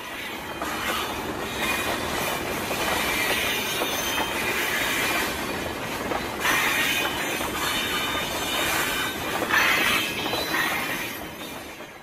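Railway train running on the rails: a steady rolling noise, with high wheel squeal swelling and fading several times.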